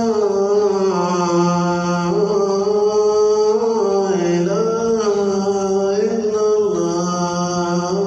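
Muezzin calling the adhan (Islamic call to prayer): a solo man's voice holding long, ornamented notes that slide up and down in pitch.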